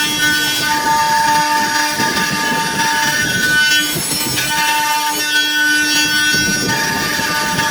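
Nesting CNC router cutting: a steady high spindle whine that swells and fades every second or two as the cut goes on, over a rough cutting noise.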